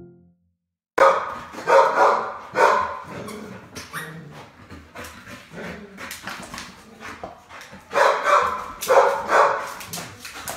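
A dog barking in short bursts: a run of about three loud barks starting about a second in, quieter noises and clicks in between, and another run of barks near the end.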